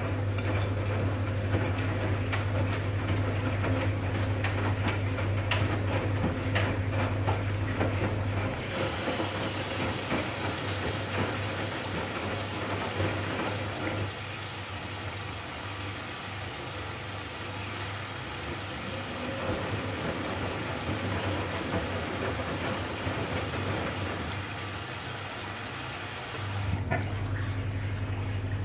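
Arçelik 2200 front-loading washing machine in its intermediate rinse: the drum tumbles wet laundry with a steady low motor hum and sloshing water, then about a third of the way in the motor stops and water hisses in through the inlet. Near the end the hiss stops and the drum starts turning again.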